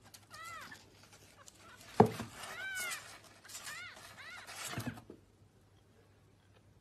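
Kitten mewing: four short high mews that rise and fall, with a single thump about two seconds in.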